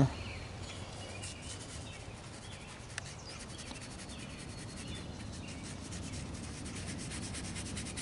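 Faint rubbing of a wet paintbrush worked over wax crayon on textured paper, over a low, steady outdoor background noise.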